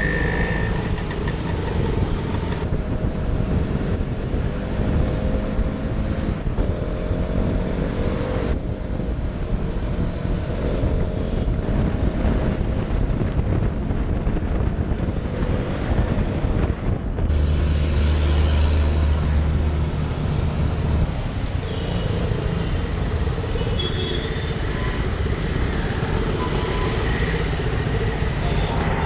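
KTM Duke 200's single-cylinder engine running under heavy wind rumble, its pitch rising and falling as the bike speeds up and slows in traffic. A deep steady drone joins for a few seconds past the middle.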